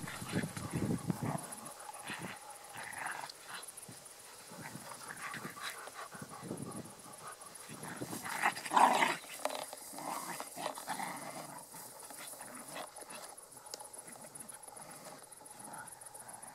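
Two dogs, a Schnauzer and a shepherd-type dog, growling in rough play while they wrestle. The loudest outburst comes about nine seconds in, and the growls grow sparser toward the end.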